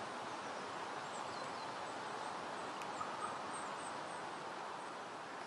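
Steady outdoor background hiss with a few faint, high bird chirps.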